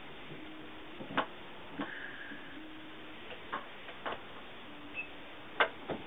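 Hands working on bare feet during a foot massage, giving about six soft clicks and taps at uneven intervals over a steady low hiss, the sharpest near the end.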